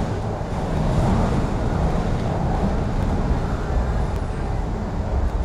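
MTR Kwun Tong Line Q-Train electric multiple unit running at speed, heard from inside the carriage as a steady low rumble of wheels, motors and running noise.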